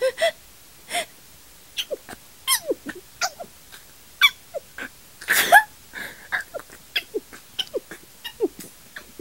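A woman stifling a run of sneezes: a rapid string of short, squeaky, held-in sneezes and catching breaths. One louder, longer burst comes about five and a half seconds in.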